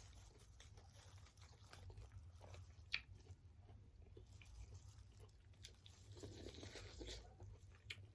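Faint close-up chewing and biting on seafood-boil corn on the cob: small wet mouth clicks, with one sharper click about three seconds in.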